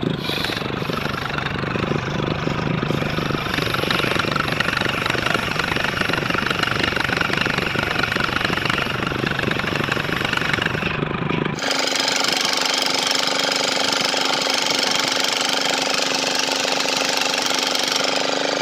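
Large circular sawmill blade ripping lengthwise through a coconut-wood log: a loud, dense, steady cutting noise. About two-thirds through it switches abruptly to a higher, steadier sound with several even tones as the saw keeps running.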